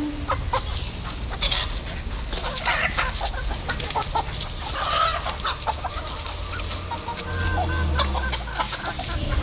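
A flock of chickens clucking, with many short irregular calls and a pitched squawk about halfway through.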